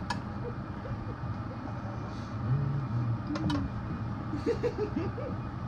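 Steady low background rumble, with a few faint, short murmured vocal sounds about halfway through and again near the end.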